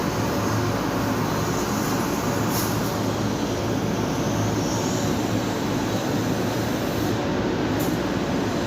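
CNC cutting machine running during a cut: a steady mechanical hum with a hissing noise over it, level and unbroken.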